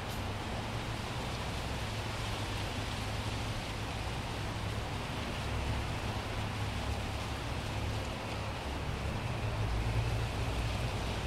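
Open-top Mustang convertible on the move: steady wind rush over the open cabin and microphone, with a low rumble of engine and tyres on the road. A faint tone rises slowly near the end.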